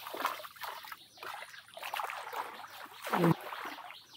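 Water sloshing and splashing irregularly as someone wades and churns up a shallow canal, with a louder splash about three seconds in.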